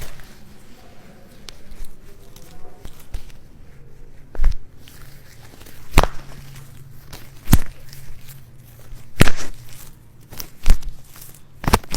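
A series of sharp knocks from a chiropractic adjustment of the sacroiliac joints, the strongest coming about every second and a half from about four seconds in.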